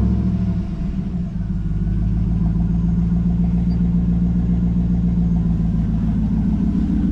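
Chevy Silverado pickup's V8 engine idling steadily just after starting, its intake freshly treated with Sea Foam. The exhaust has fallen off and hangs loose under the truck.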